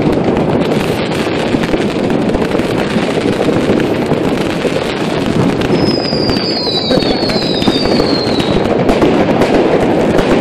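Fireworks going off in a dense, continuous crackle of pops and bangs. About three high whistles glide slightly down in pitch around the middle.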